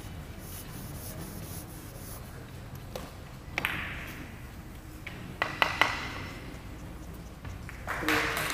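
Hall ambience with one sharp click that rings briefly about three and a half seconds in, then a quick cluster of similar ringing clicks a couple of seconds later. Near the end a rustling murmur of noise rises.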